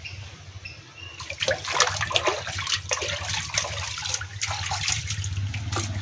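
Water splashing and sloshing in a shallow fish tank as a hand swishes through it, starting about a second in, over a steady low hum.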